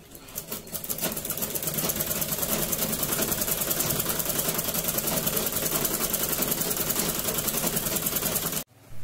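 Black vintage domestic sewing machine stitching a line along the edge of cotton fabric: it picks up speed over the first second, runs at a steady fast stitch rhythm, then cuts off suddenly near the end.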